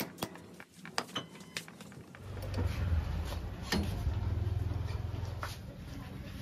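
Metal tools and parts clinking in a run of short clicks, then a steady low machine drone starts a little over two seconds in and continues.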